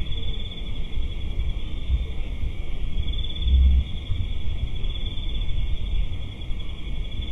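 Crickets or other insects trilling steadily in a high, even chorus over a low rumble that swells briefly about three and a half seconds in.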